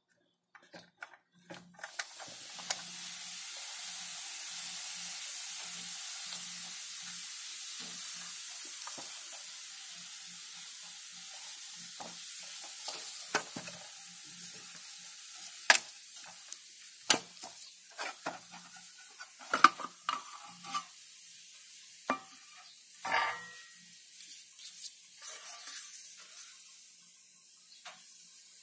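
The sheet-steel case of a computer power supply being handled as its cover is lifted off the circuit board: scattered sharp clicks and light metal knocks, with a cluster of them in the second half. Under them runs a steady high hiss that starts a couple of seconds in and slowly fades.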